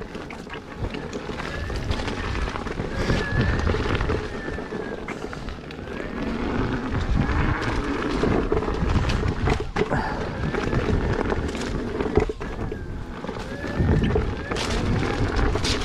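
Wind buffeting the microphone and rolling rumble from an electric unicycle ridden along a dirt trail, with a faint whine rising and falling in pitch. There are a couple of sharp knocks from bumps, one about ten seconds in and one about twelve seconds in.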